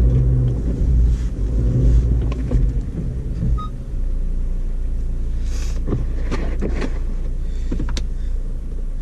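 2012 Audi A4 Quattro engine revving under load for about three seconds as the car tries to reverse out of deep snow with traction control off, then settling to a steadier, quieter run. A few sharp knocks come near the end.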